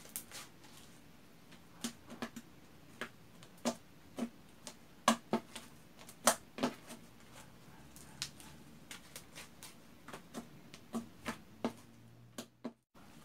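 Pink glue-and-detergent slime being stretched, squeezed and pressed on a tabletop by hand, making irregular sharp clicks and pops.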